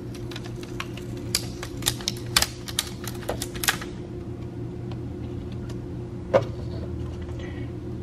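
Quick, irregular clicks and crackles as the old speedometer face of a BMW instrument cluster is peeled off its adhesive by hand, for about the first four seconds, then a single click a couple of seconds later. A steady low hum runs underneath.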